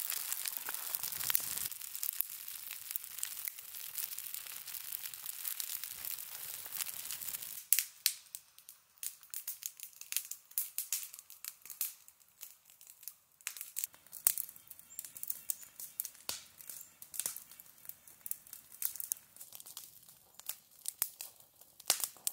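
Campfire of birch bark and dry sticks burning. For the first seven or eight seconds it gives a dense, continuous crackling hiss. After that it settles into scattered sharp pops and snaps.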